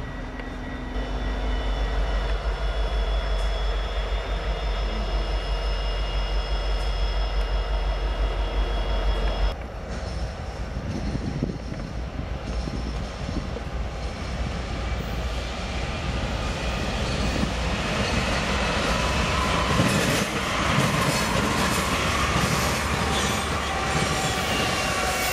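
Diesel freight locomotives running with a deep, steady rumble. About nine seconds in this switches to a BNSF intermodal freight train rolling past, its wheels clattering on the rails with some squealing, growing louder toward the end.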